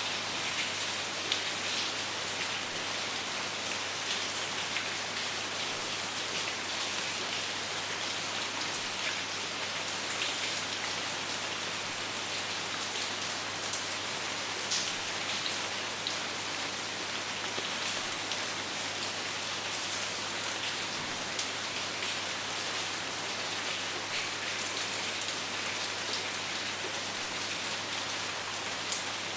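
Steady rain falling, an even hiss with scattered individual drops pattering on a hard surface.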